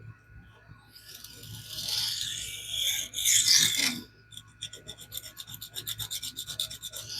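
Steel knife edge (CPM SPY27) stroked across 100-micron aluminum oxide abrasive film to reprofile the bevel. About a second in come two longer strokes, then a quick run of short strokes, about eight a second.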